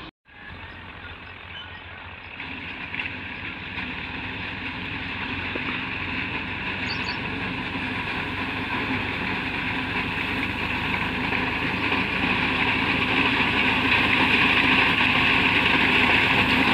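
Tractor with a mounted wheat-reaping machine running, its engine noise growing steadily louder as it approaches through the field.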